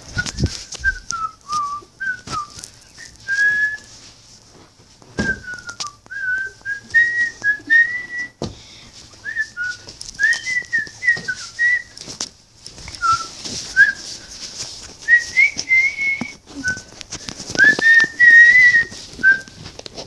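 A person whistling a tune in short, wandering notes, with scattered knocks and rustles from the handheld phone being moved about.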